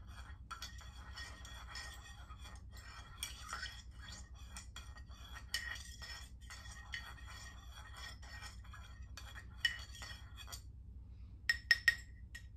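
A metal butter knife stirring coffee in a ceramic mug, scraping and clicking against the sides in quick irregular strokes. Near the end come three sharp clinks close together, louder than the stirring. A low steady hum runs underneath.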